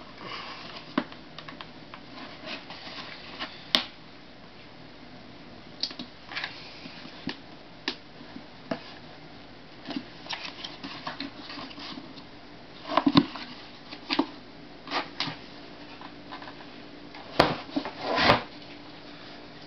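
Oven-heated 1996–97 Honda Accord tail light being pried apart by gloved hands: irregular clicks, creaks and knocks of the plastic lens and housing as the softened glue seal is worked loose. A few louder cracks come about two-thirds of the way in and again near the end.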